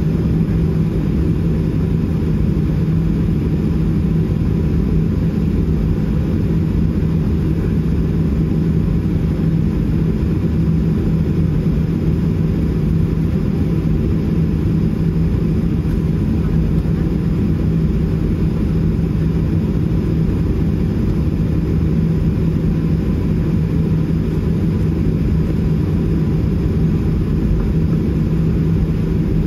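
Steady low rumble of a moving vehicle, with a constant low hum over it and no change in level.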